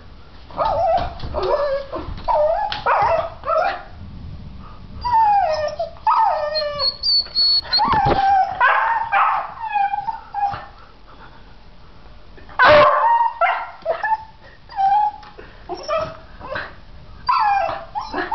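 Dogs whining, yipping and crying in a rapid string of short, sliding high-pitched calls, with one loud sharp bark about two-thirds of the way through. They are worked up at a cat seen outside the window.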